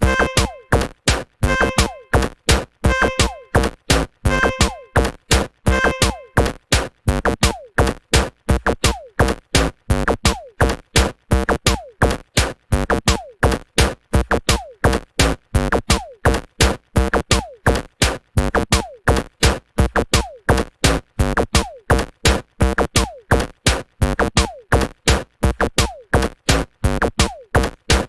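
Electronic music: a fast, steady drum-machine beat of sharp, evenly spaced hits, about four a second, with short repeated synth notes over it.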